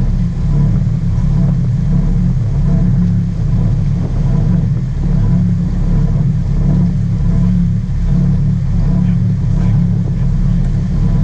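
Steady low rumble of a sport-fishing boat's engine running under way, with a buffeting quality.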